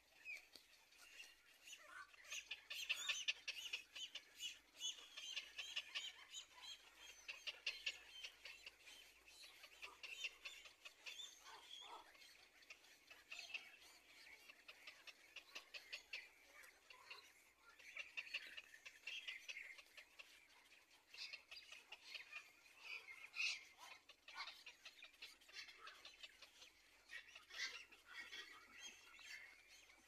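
Heron nestling giving faint, rapid clicking begging chatter in repeated bursts.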